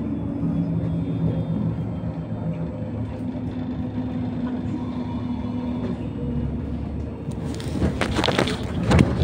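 Inside a moving electric bus: steady low electric drive hum under road rumble. A louder rattling clatter with sharp knocks sets in near the end.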